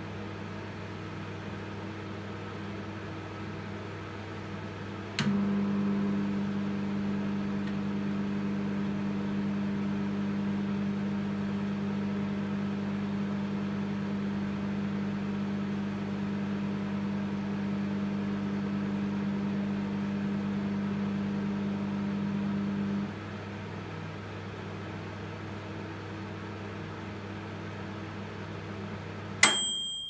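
Bajaj 1701 MT solo microwave oven running empty on medium power with a steady hum. With a click about five seconds in, the hum turns louder and deeper as the magnetron switches on, then drops back about eighteen seconds later as it cycles off. At the very end the timer bell dings once: the one-minute cycle is over.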